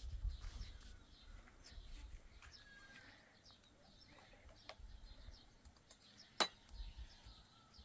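Faint outdoor ambience: scattered short bird chirps over a low rumble, with one sharp click about six and a half seconds in.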